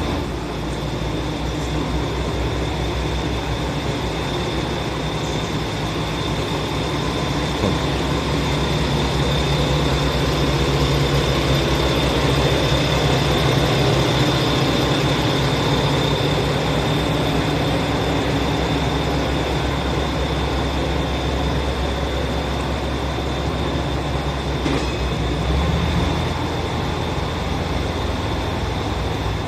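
JR West KiHa 120 diesel railcar pulling out and passing close by, its engine drone and wheel noise loudest about twelve to fourteen seconds in, then easing as it draws away. A steady high whine runs under it throughout.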